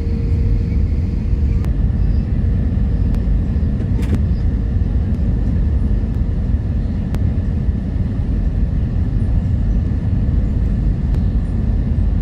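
Steady low rumble of airflow and engines inside the cabin of an Airbus A320neo descending on approach with its flaps extended.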